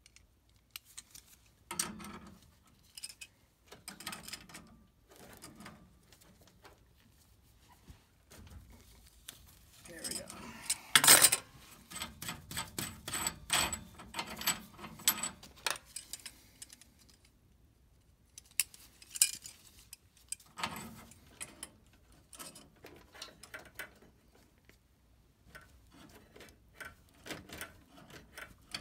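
Metal wrenches clinking, scraping and rattling against steel gas pipe fittings while the gas piping is worked loose from a furnace gas valve. The clinks come in irregular bursts with pauses between them; the loudest clatter comes about eleven seconds in.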